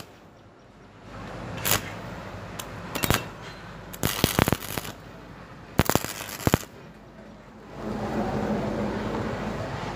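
Stick-welding arc on cast iron with a nickel electrode: several short bursts of sharp sputtering crackle as the rod is struck and runs briefly, then near the end the arc settles into a steady crackle.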